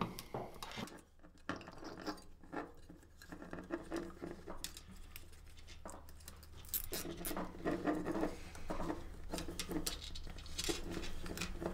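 Hands handling a tail tidy bracket and its indicator wiring on a table: soft rustling of cables with scattered light clicks and taps.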